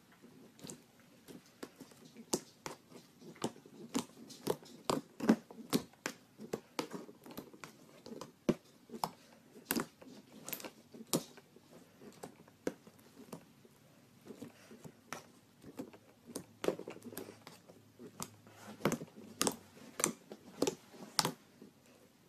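Purple slime being squeezed and pressed by hand inside a plastic bag, making many sharp, irregular pops and crackles, several a second.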